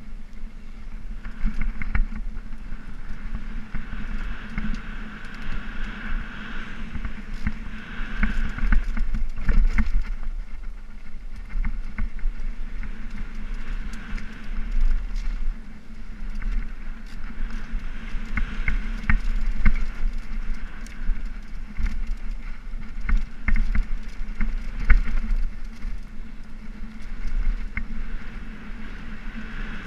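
Mountain bike descending a rough dirt singletrack: a continuous low rumble of the tyres on dirt and rushing air, with frequent sharp knocks and rattles from the bike as it rides over roots and rocks.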